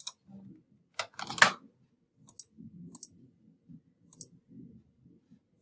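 Sharp clicks of a computer mouse and keyboard keys: single clicks early on, then several quick pairs, the loudest about a second and a half in.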